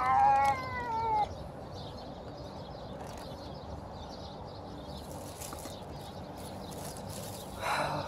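A hungry stray cat meows once, a call of about a second whose pitch slides down at the end, begging for food. Near the end a plastic bag rustles briefly.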